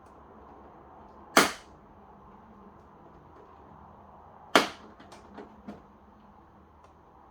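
Two sharp plastic snaps about three seconds apart, the second followed by a few smaller clicks: the clips holding an LED TV's back cover popping loose as the panel is pried apart.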